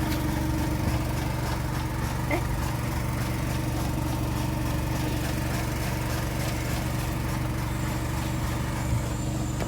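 An engine running steadily at idle, a low even drone that holds the same pitch throughout.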